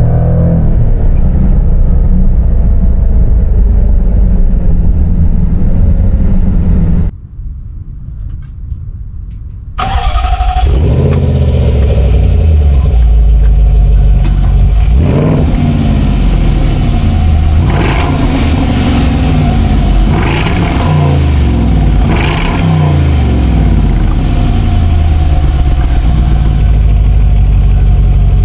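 Jaguar F-Pace SVR's 5.0-litre supercharged V8 accelerating hard, heard first from inside the cabin. After a cut and a quieter few seconds, it is heard from outside, where the exhaust rises in pitch and drops back at each upshift, with a few short sharp crackles in between.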